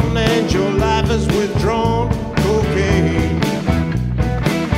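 Blues-rock band playing a steady groove with bass and drums, and a lead line of bending, sliding notes over it.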